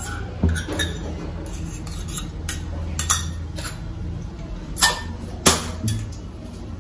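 Stainless-steel kitchen utensils clinking against a steel kadai and bowls, several separate sharp clinks, the loudest two about five seconds in, over a low steady hum.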